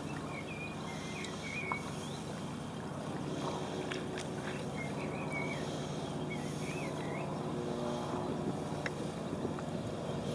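Outdoor lakeside ambience: steady wind and rippling water, with small birds chirping in short warbling phrases again and again over a steady low hum.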